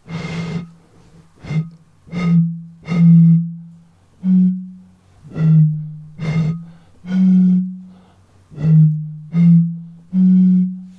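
A run of about eleven notes played on glass bottles holding different amounts of water, each a low, ringing tone at one of three or so nearby pitches, starting sharply and fading over about a second.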